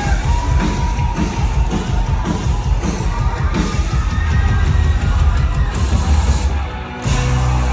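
Loud band music with drums and heavy bass, with a sung voice holding long notes over it and some crowd noise. The music dips briefly and changes near the end.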